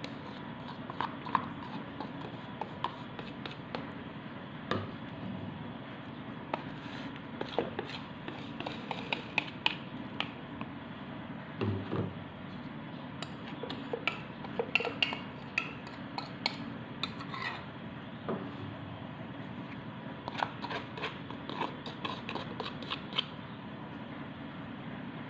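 Small bowls and spoons clicking and tapping against a stand mixer's bowl as sugar, flour and other dry ingredients are tipped in, with a soft thud about halfway through, over a steady low background hum.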